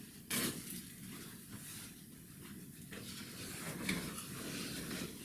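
Handling noise from packing the slider back into its cardboard box: irregular rustling of packaging, with a sharp knock about half a second in and a smaller one near the four-second mark.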